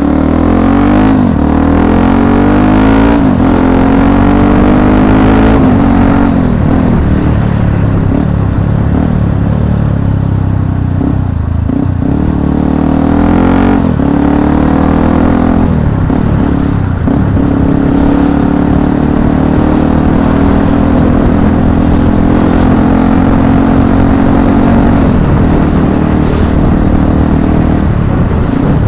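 Motorcycle engine running under way, heard through an action camera's built-in microphone; the revs rise and fall several times with acceleration and gear changes, then hold steadier.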